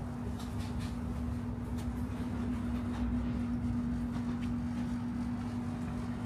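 Steady mechanical hum holding one pitch over a low rumble.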